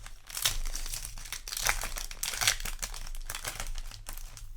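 Foil booster-pack wrapper crinkling in a run of irregular rustles as it is handled and opened.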